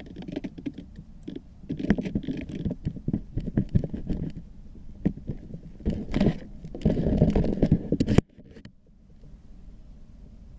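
Footsteps on grass with clothing rustling and rubbing against a body-worn camera: irregular rustles and soft knocks. It cuts off suddenly about eight seconds in, leaving only a faint low background.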